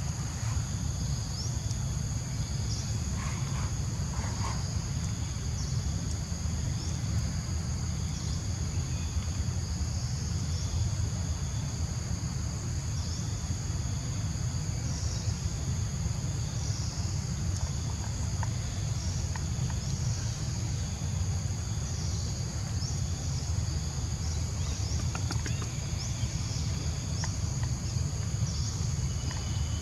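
Outdoor insect chorus: steady high chirring with small repeated chirps, over a constant low rumble.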